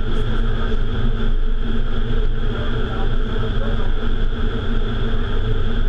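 Steady rush of air and fan noise in an indoor vertical wind tunnel, heard from inside the flight chamber: a heavy low rumble with a few steady hum tones over it.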